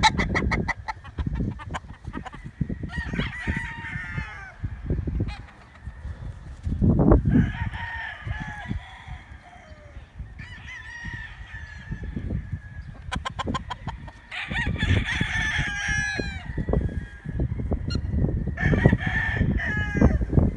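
Roosters crowing in turn, about four crows over the stretch, with chickens clucking between them over a steady low rumble.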